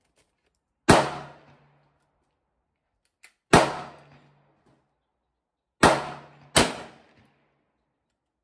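Gunshots on a shooting range: four sharp reports, each dying away over about half a second, the last two less than a second apart, too close together for the single-shot .410 and fired while it is held low, so they come from other shooters' guns. A faint click comes just before the second shot.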